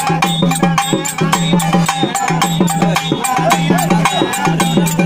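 Hand-held folk drums beaten in a fast, steady rhythm, many strokes a second, with a deep ringing tone sounding under the beat.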